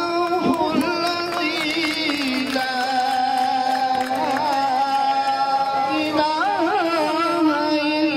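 Background music: a slow melody of long held notes with ornamental wavering turns.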